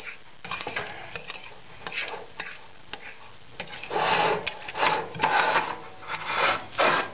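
A fork scraping and tapping on a plate while fluffing and heaping cooked couscous: a run of light ticks and scrapes, with louder scraping strokes in the second half.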